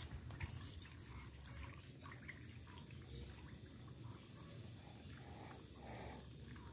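Faint trickling and dripping of water in a shallow ditch, over a steady low rumble.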